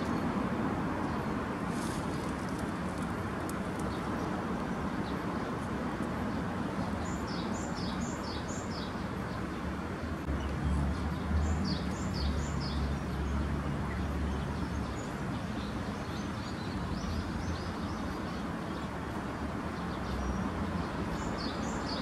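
A small bird chirping in quick runs of four or five short, high notes, three times, over a steady outdoor background hum with a low rumble.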